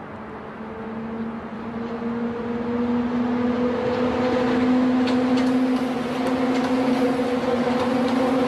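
Transrapid-type maglev train approaching: a steady hum over a rushing noise, growing louder over the first few seconds and then holding, with a few faint clicks later on.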